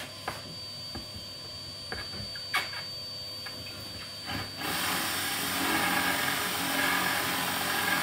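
Cordless drill boring a hinge-cup hole into a laminated cabinet door. A few light clicks and knocks as the bit is set on the mark, then about halfway through the drill starts and runs steadily, cutting into the board.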